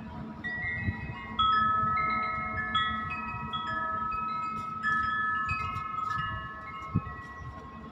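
Wind chimes ringing: clear tones at several pitches struck at irregular moments and overlapping as they ring on, the loudest about a second and a half in. A dull low bump near the end.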